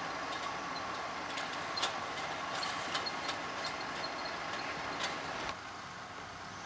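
Steady running noise of a car heard from inside the cabin, with a faint steady hum and a few scattered light clicks. The noise drops a little about five and a half seconds in.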